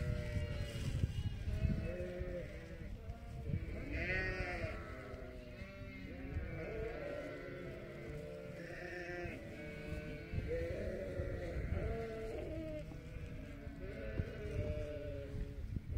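A flock of sheep bleating, with many calls overlapping continuously. A few higher, thinner calls stand out about four seconds and nine seconds in.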